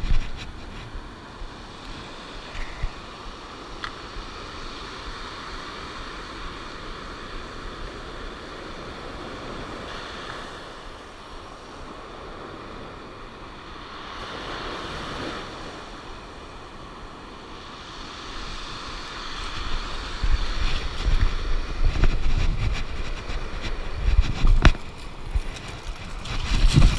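Surf washing onto a pebble beach, with wind on the microphone. In the last several seconds heavier low rumbles and bumps come in as fabric brushes across the microphone.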